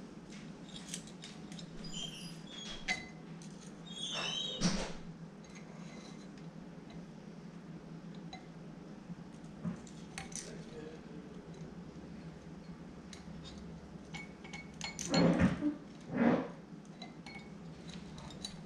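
Small metal engine parts clinking and tapping as the cam chain and cylinder are handled on the cylinder studs, with a few louder clattering handling noises about four seconds in and again near the end. A steady low hum runs underneath.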